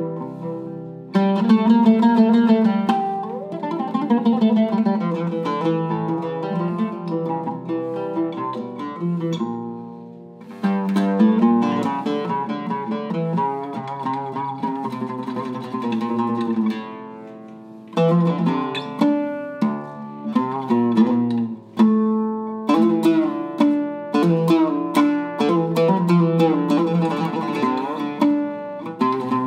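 Syrian-made Dayra oud with a cedar top, old walnut back and Kürschner strings, played solo: phrases of plucked notes that ring and die away. There are short breaks about ten and seventeen seconds in, and faster runs of notes near the end.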